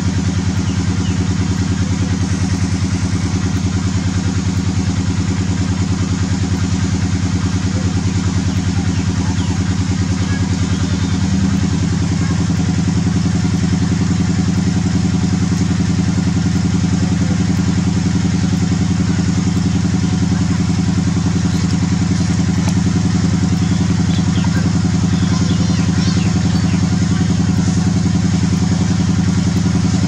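A small engine idling steadily with an even, low pulsing beat, growing slightly louder about eleven seconds in.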